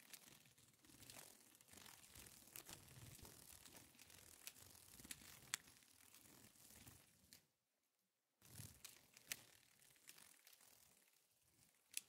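Peacock butterfly's wings flapping: faint, dry papery rustling with scattered sharp clicks, broken by a brief silence about two-thirds of the way through.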